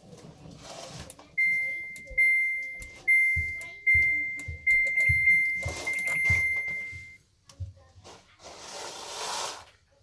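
Samsung DV90K6000 tumble dryer's control panel beeping as its buttons are pressed: about six high electronic beeps in quick succession, each starting with a light knock of the press. A short rustle follows near the end.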